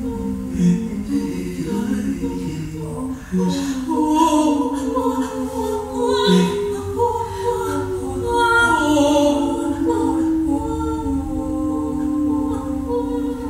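A small group of voices singing an improvised a cappella piece, holding long overlapping tones. In the middle one voice slides slowly down in pitch.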